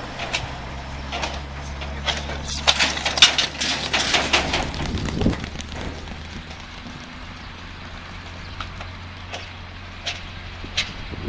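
A motor running with a steady low hum. A run of sharp cracks and clattering knocks comes from about two to five seconds in, with a few more near the end.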